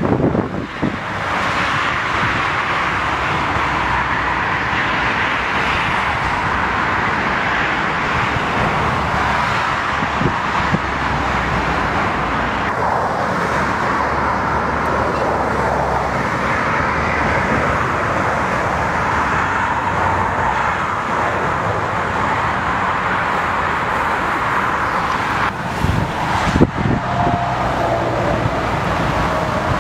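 Steady roar of rear-engined twin jet airliners' engines heard near the runway, mixed with strong wind on the microphone. The sound changes abruptly about a third of the way in. Near the end a few gusty thumps come, and a thin whining tone rises out of the roar as the jet rolls down the runway after landing.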